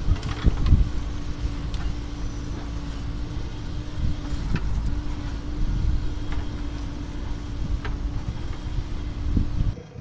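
JCB backhoe loader's diesel engine running steadily with a level hum while the backhoe bucket works loose gravel, with a few sharp clinks of stones.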